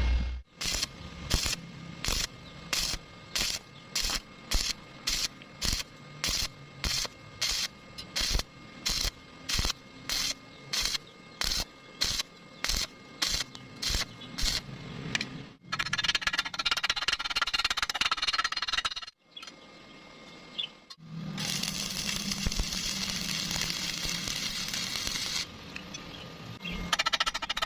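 Electric arc welding: the arc crackles in short, evenly spaced bursts, about one and a half to two a second, as in stitch welding. It then crackles continuously for two longer runs, a few seconds each, separated by a brief pause.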